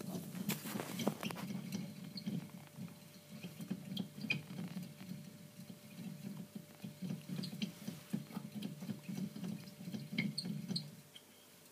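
Hamster running in a clear plastic exercise wheel: a rapid, steady low pattering rumble with light clicks and rattles, which stops about eleven seconds in.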